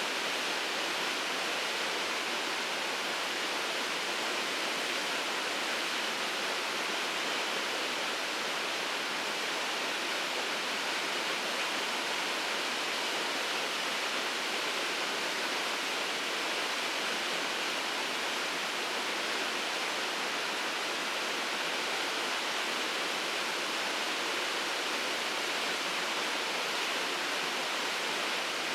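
Shirogane Falls, a waterfall, pouring steadily: an even, unchanging rush of falling water, brighter and hissier than it is deep.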